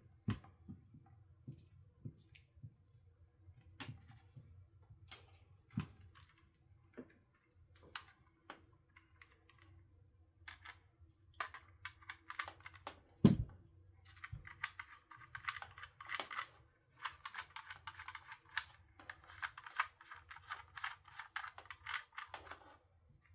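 Scattered clicks and knocks of small hard plastic parts being handled and fitted together, with one louder knock about halfway through. Then about ten seconds of dense crackly rustling and rapid small clicks.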